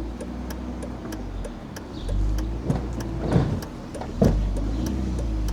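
BMW E46 in the driveway: a low steady rumble with a regular ticking, a little under three ticks a second, and a few heavier knocks around the middle.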